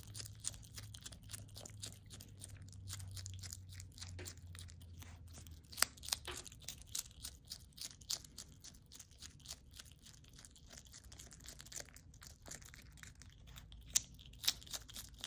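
A pet striped skunk chewing a raw carrot stick: a steady run of small crunches and clicks, with a few louder crunches about six seconds in and again near the end.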